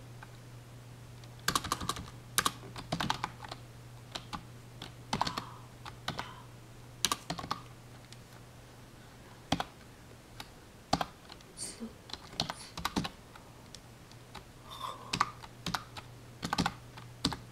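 Typing on a computer keyboard: irregular bursts of keystrokes with short pauses between them, over a steady low hum.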